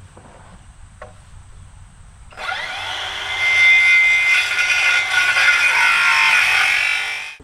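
Power saw cutting through wood: it starts about two and a half seconds in with a high whine, gets louder as the blade bites, and cuts off abruptly near the end.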